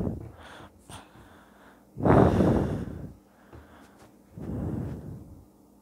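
A person breathing out hard twice, about two seconds in and again about four and a half seconds in; the first breath is the louder.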